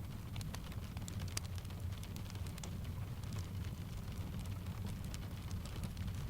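Layered ambience of steady rain and a crackling wood fire: a constant low rumble under many scattered sharp crackles and taps.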